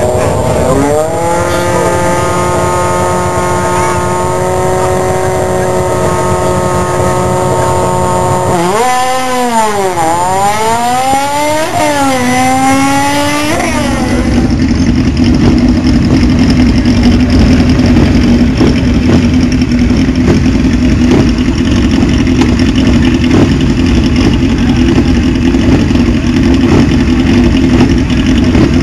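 A drag-racing motorcycle engine held at high, steady revs through a smoky burnout, then blipped sharply down and up several times. After a sudden change, a drag motorcycle's engine runs loud and steady at a lower pitch on the start line.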